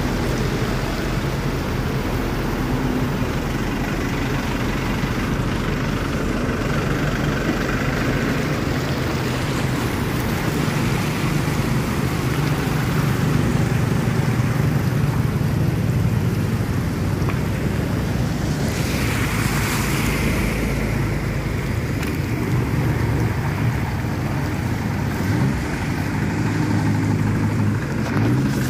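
Motor vehicles running through floodwater: a steady engine hum with water washing and sloshing around it, and a louder rushing swell about two-thirds of the way through.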